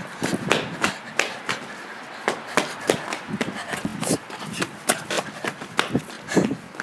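Footsteps of a person running on concrete: quick, sharp steps about two to three a second.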